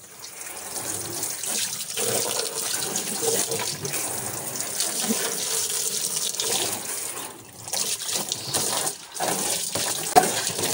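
Water running from a hose into the empty plastic wash tub of a twin-tub washing machine, rinsing the tub out. The flow breaks off briefly twice in the second half.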